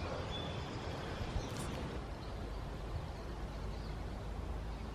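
Quiet outdoor background: a steady low rumble and hiss, with one short, faint high chirp near the start and a small click a little later.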